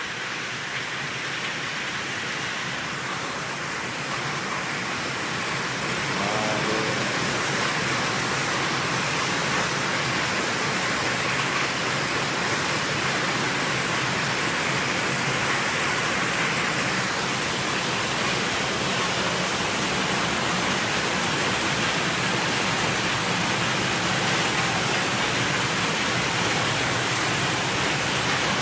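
Swollen creek in flood, water rushing steadily, a little louder from about six seconds in.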